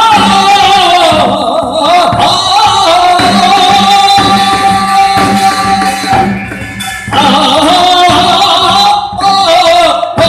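Music from a live traditional-style Korean performance: a voice holding long, wavering notes over a steady low beat, with a short lull about six seconds in.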